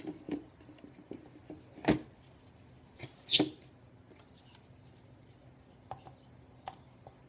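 Hard plastic knocks and clicks as a Tupperware microwave pressure cooker's lid is set on the pot and its locking handle is fitted: a few scattered taps, the loudest about two seconds in.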